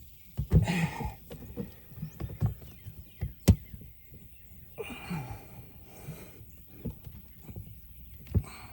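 Scattered clicks, taps and rustles of plastic parts being handled and screwed tight on an Intex saltwater chlorinator, with one sharp click about three and a half seconds in.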